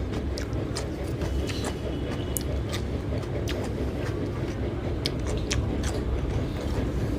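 Eating sounds: irregular sharp clicks and crunches of chewing over a steady low rumble.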